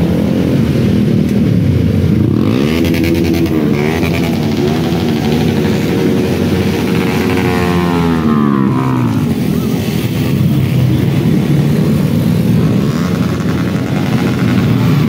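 Many motorcycle engines running as a convoy of motorcycles rides past. Several engines rev with rising and falling pitch between about two and nine seconds in.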